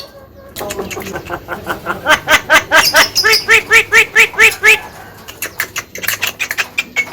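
Javan myna (jalak kebo) chattering: a fast, even run of short, harsh notes, about five a second, loudest in the middle of the run.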